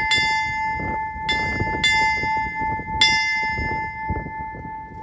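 Ship's bell struck in pairs, a sharp clang at each stroke with the bell ringing on between them: one stroke at the start, a quick pair about a second and a half in, and another about three seconds in, then the ring fades away.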